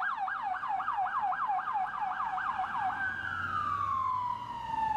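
Electronic ambulance siren: fast up-and-down yelp sweeps about four a second, switching about three seconds in to one long falling wail as it winds down.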